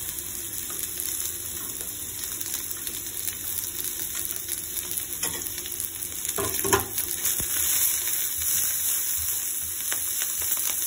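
Sliced garlic, ginger, dried chilies and scallion sizzling in a little hot oil in a non-stick wok, a steady hiss that grows a little louder near the end as a spatula starts stirring them. A short sharp noise cuts in about six and a half seconds in.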